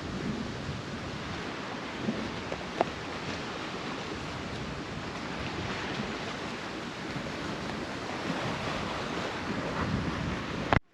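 Strong wind rushing steadily, with a few faint knocks, cutting off abruptly at the end.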